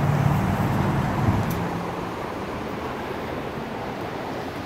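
Street traffic: a vehicle's engine hum that fades away about two seconds in, over a steady rush of road noise.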